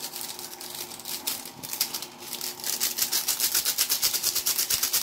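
A seasoning sachet shaken and tapped over a pan of chicken, its granules pouring out. It makes a crinkling rattle that turns into a fast, even run of ticks about two and a half seconds in.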